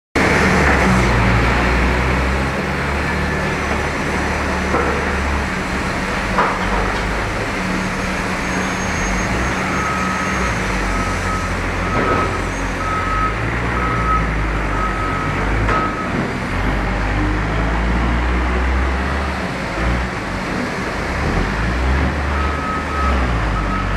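Manitou MT 1232 S telehandler's diesel engine running under changing throttle as the machine works. Its reversing alarm beeps evenly, a little faster than once a second, for several seconds midway and again near the end.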